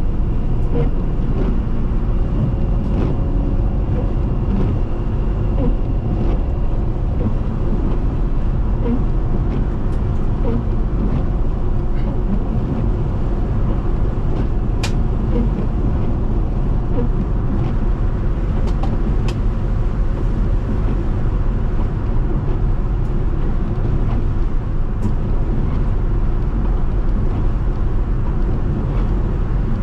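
Car driving on a snowy highway: steady low road and engine noise, with a few faint clicks scattered through it.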